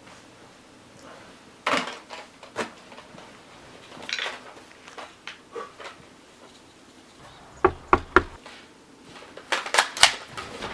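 Scattered knocks and clattering handling sounds, with three sharp knocks in quick succession about three-quarters of the way in and a brief cluster of clacks near the end.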